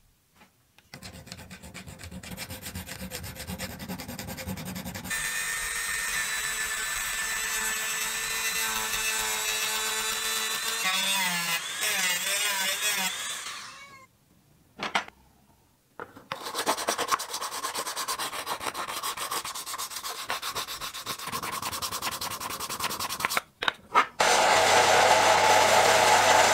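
A small metal part clamped in a bench vise being rubbed down by hand with an abrasive, long stretches of steady scraping strokes broken by short pauses. Near the end a motor-driven polishing wheel starts running with a steady hum.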